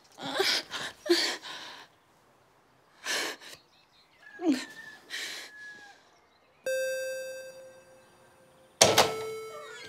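Several short breathy bursts, then two bell-like chime tones that each ring on and slowly die away. The first comes about two-thirds of the way in; the second is a little lower and starts with a sharp hit near the end.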